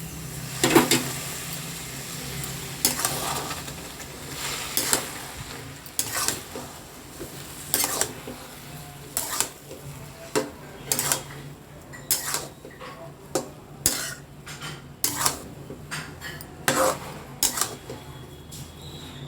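A utensil scraping and knocking against a kadai as sooji upma is stirred after water is added, roughly one stroke a second, over a steady low hum.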